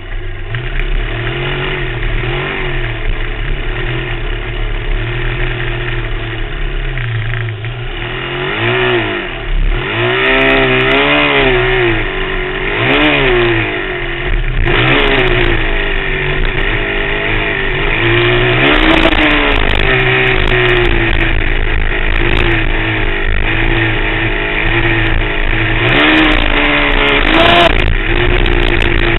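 Dirt bike engine running hard under throttle, its pitch rising and falling over and over as the rider opens and closes the throttle and shifts gears. It is louder in the second half.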